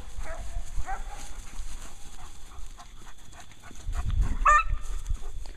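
A dog barking: a couple of faint barks in the first second, then one sharp, high bark about four and a half seconds in, with a low rumble around it.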